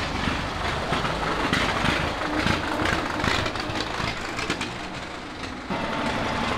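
Cars driving past on a road: engine and tyre noise with a run of rattling ticks partway through. The sound changes abruptly near the end.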